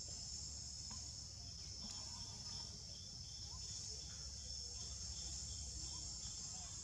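Steady high-pitched insect chorus, with a second insect calling in short pulses of about four a second from about two seconds in.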